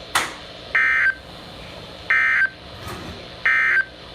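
Three identical short bursts of warbling digital data tones from a NOAA Weather Radio broadcast, about 1.4 seconds apart: the SAME end-of-message code that closes the snow squall warning. A sharp click comes just before the first burst and another about three seconds in, over steady radio hiss.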